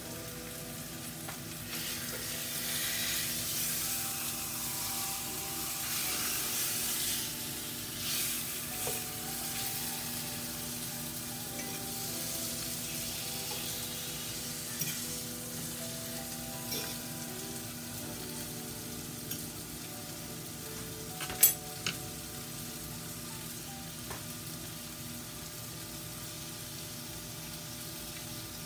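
Cornish hen pieces and carrots sizzling in oil in a stovetop skillet, a steady hiss that is a little louder early on, with one sharp click about two-thirds of the way through.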